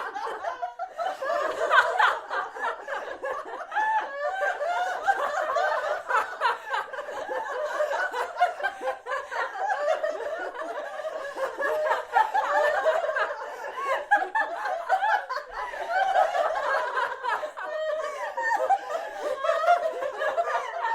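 A group of people laughing together, many voices overlapping in a continuous stream of laughter.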